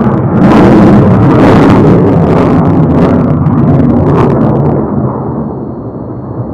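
Fighter jet noise from an F-22 Raptor's engines in afterburner: a loud, dense rumble with crackling. About five seconds in, the sound drops in level and turns duller as the treble falls away.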